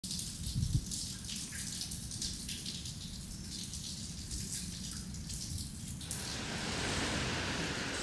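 Ambience of light rain, an irregular patter of dripping water over a low rumble, giving way about six seconds in to a steady rushing hiss of passing road traffic on a wet street.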